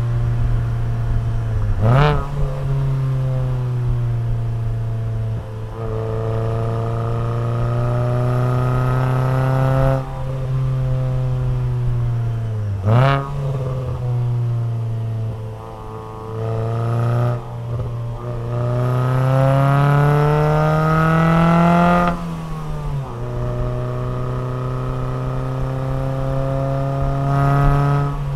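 Alfa Romeo 147 Twin Spark four-cylinder engine heard through an aftermarket FORCE-G exhaust, pulling through the gears with the revs rising and falling again and again. There are two brief, sharp rev spikes, one about two seconds in and one about thirteen seconds in. The longest, loudest climb in revs comes past the middle and ends in a sudden drop.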